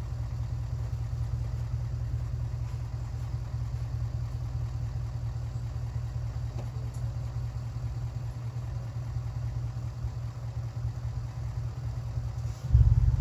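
A steady low car-engine drone; near the end a much louder low rumble starts abruptly.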